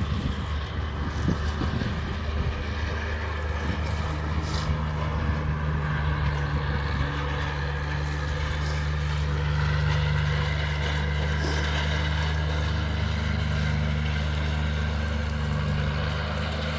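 Steady low hum of a running engine or motor, with a few faint clicks and rustles in the first few seconds.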